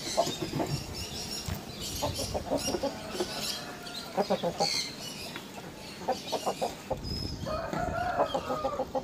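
Aseel chickens clucking in runs of quick, short clucks, with a longer drawn-out call about three-quarters of the way through.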